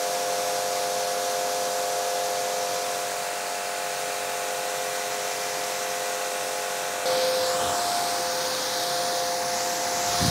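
A JPT S2 compact electric pressure washer running steadily. Its small motor-pump gives a steady whine under the hiss of the wide water spray from the gun on a car. About seven seconds in the spray hiss gets a little louder and brighter.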